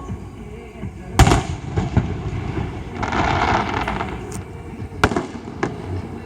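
Fireworks going off: a loud sharp bang about a second in, a hissing crackle around the middle, then another bang and a couple of smaller pops near the end, over a low rumble.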